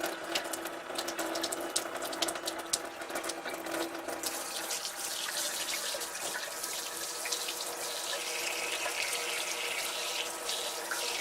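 Hot water running out of a portable burner-heated tankless water heater's outlet in a steady stream. Over the first few seconds there is a faint hum and a patter of small ticks, and about four seconds in it becomes a fuller, steady hiss of flowing water.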